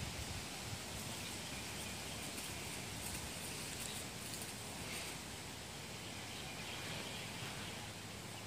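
Quiet outdoor ambience: a steady, even hiss with a few faint ticks.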